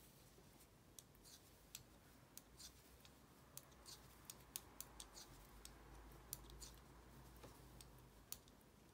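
Faint, irregular clicking of knitting needles as stitches are knit, many small ticks at uneven intervals over a low steady hum.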